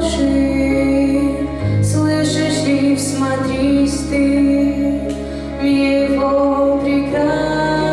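Voices, female among them, singing a slow Christian Passion hymn, with held low notes underneath.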